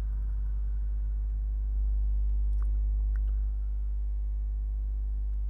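Steady low electrical hum with a row of fainter overtones above it, growing slightly louder for about two seconds in the middle, with a couple of faint ticks.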